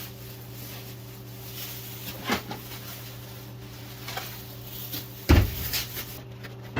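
Storage bins knocking as they are moved, with light knocks and then one heavy thump about five seconds in, over a steady low hum.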